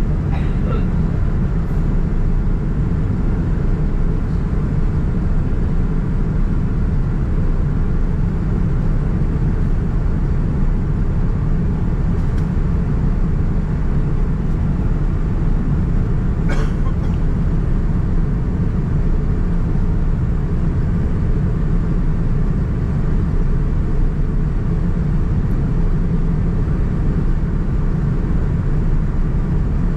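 Steady cabin roar inside a Boeing 787-9 airliner in flight: engine and airflow noise, an even low rumble that holds at one level throughout. A faint click comes about halfway through.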